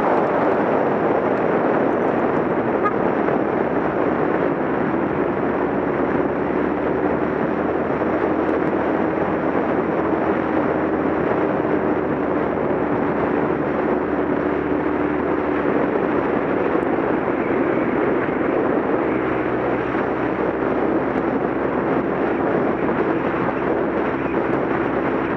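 Motorcycle riding along at road speed: a steady rush of wind over the microphone with the engine's even drone beneath it.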